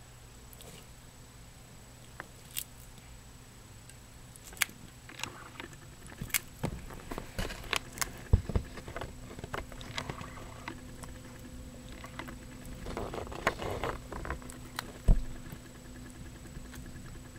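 Ornate box turtle biting and chewing a cockroach: irregular crunchy clicks and crackles of its beak on the insect's shell, mixed with rustling of the wood-chip bedding, busiest in the middle and sparse at the start.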